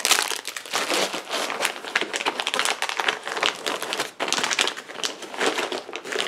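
Clear plastic packaging bags crinkling as they are handled and set down, a run of irregular crackles.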